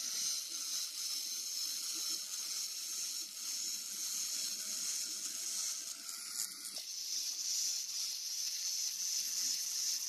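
Angle grinder with a cut-off disc cutting through welded wire mesh: a steady high hiss, with a faint steady whine under it that drops away about seven seconds in.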